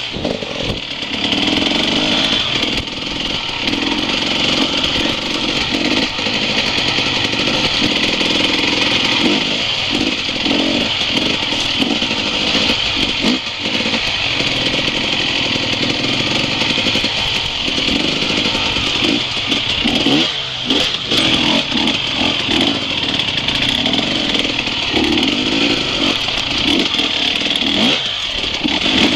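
Enduro dirt bike engine running at low to middling revs, the throttle opening and closing as the bike picks its way along a rocky streambed, with frequent knocks from stones and the bike jolting over them.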